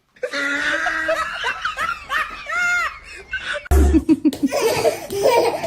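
People laughing, with short pitched sounds early on and a quick run of laughing pulses after a dull thump about two-thirds of the way in.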